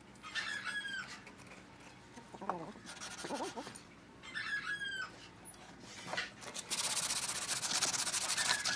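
Sandpaper rubbed by hand along a curved laminated wooden strip: a steady rasping that starts about three quarters of the way in and is the loudest sound. Before and during it a chicken calls several times, short calls that fall in pitch.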